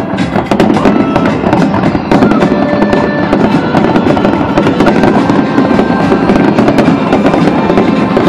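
An aerial fireworks display bursting in a rapid, unbroken barrage: many shells cracking and popping over one another with no pause between them.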